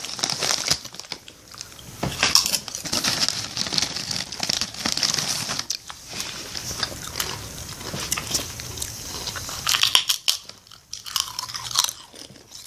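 Potato chips being bitten and chewed close to the microphone: crisp crackling crunches in runs with brief pauses. The chips are Lay's Flaming Hot.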